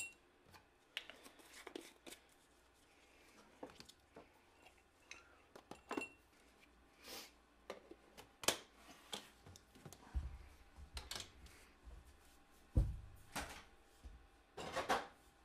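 Scattered light clicks and knocks of kitchen containers, measuring spoons and jars being handled and set down on a countertop, with a low rumble for a few seconds about ten seconds in.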